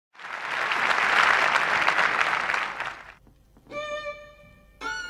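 Audience applause for about three seconds, which then dies away. After a short pause a solo violin begins, playing a few long bowed notes.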